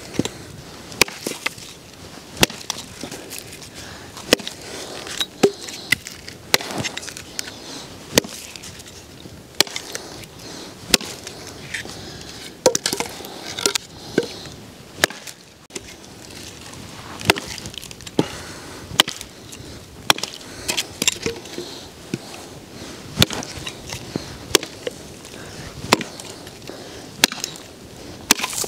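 Firewood being chopped: repeated sharp wooden strikes, roughly one a second, with a short pause midway.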